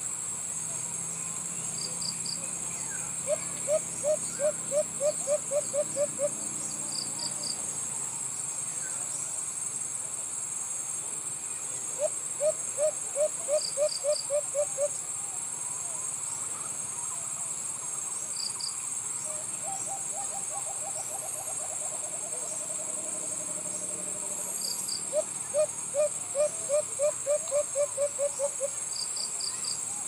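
White-eared brown dove cooing: three runs of about ten low, evenly spaced hoots, each about three seconds long, and a longer run of quicker notes falling in pitch between the second and third. Behind them is a steady high insect drone, with short triple chirps every few seconds.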